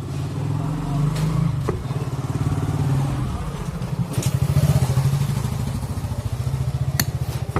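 A small engine running steadily, its firing heard as a fast, even beat, with a sharp click about seven seconds in.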